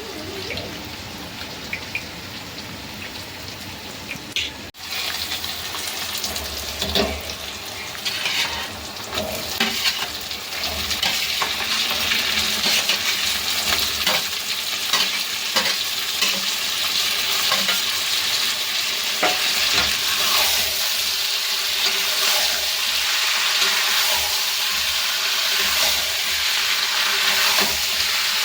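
Food frying in hot oil in a pan, sizzling with the scrapes and knocks of a spatula stirring it. After a cut about five seconds in, the sizzle grows louder and then holds steady.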